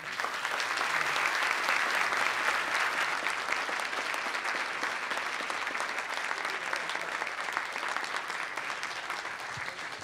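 An audience applauding steadily after a talk ends, the clapping easing off slowly near the end.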